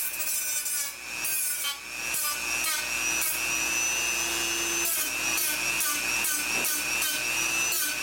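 Handheld rotary tool running at a steady high whine with an abrasive cut-off wheel, grinding through a rivet head on a sheet-metal case in repeated short bites.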